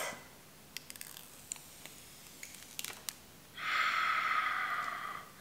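A few faint clicks and taps as a new iPhone 11 Pro is handled. Then, about three and a half seconds in, its protective plastic film is peeled off, a steady rasping peel lasting nearly two seconds.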